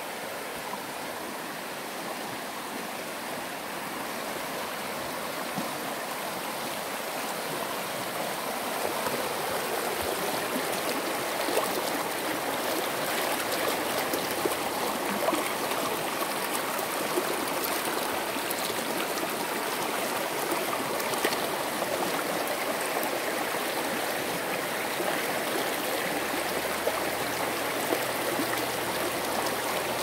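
Shallow creek rushing over rocks and riffles, a steady splashing water sound that grows louder about a third of the way in.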